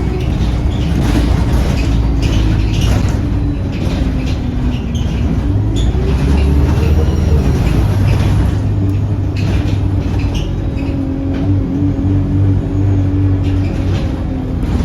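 Diesel bus engine and drivetrain running as the bus drives, heard from inside, with the engine note rising and then falling about six to eight seconds in, and scattered rattles and clicks from the body.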